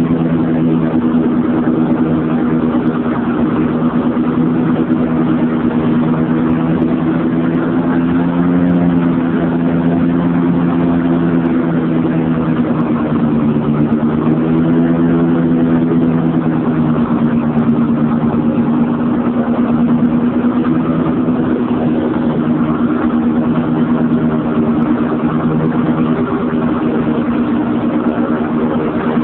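Small engine of a ride-on vehicle running steadily as it drives across grass, its hum drifting slightly up and down in pitch.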